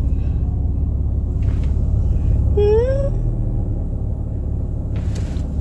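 Steady low road rumble inside a moving car's cabin, with one short rising whine-like call about halfway through.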